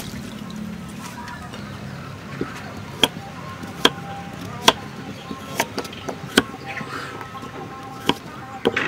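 Knife chopping a carrot on a thick wooden chopping block, with sharp chops about once a second from about three seconds in. Water sloshes in a metal bowl at the start as greens are rinsed.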